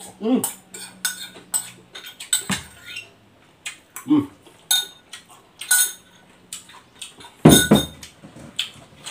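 A metal fork clinking and scraping against a noodle bowl in quick, irregular clicks, with slurping and chewing as noodles are eaten from the bowl held at the mouth. The loudest clatter comes about seven and a half seconds in.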